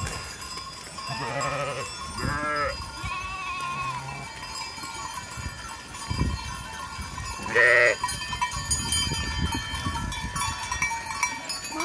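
A flock of sheep and goats bleating as it streams past, several separate bleats with the loudest about two-thirds of the way through, over the steady jingling of the animals' bells.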